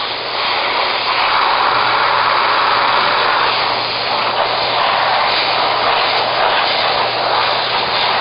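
Compressed air hissing steadily from an air-hose blow nozzle, played over a fresh CA glue joint to speed the glue's curing.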